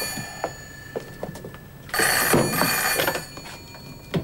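Desk telephone ringing in double rings: one ring ends right at the start, and another sounds about two seconds in, with a few light knocks in the gap between.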